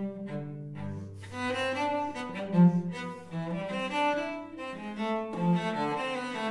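Solo cello played with the bow: a slow melody over a held low note that comes in about a second in.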